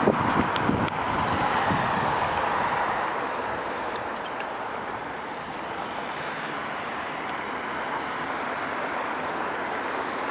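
Steady road traffic noise from cars on a multi-lane city street, louder for the first few seconds and then easing off, with a few light clicks near the start.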